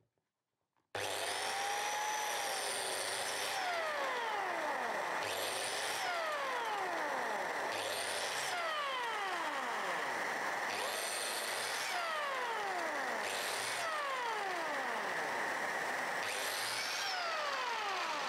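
DeWalt biscuit jointer running steadily with a constant whine while cutting biscuit slots in a melamine-faced cabinet panel; it starts abruptly about a second in.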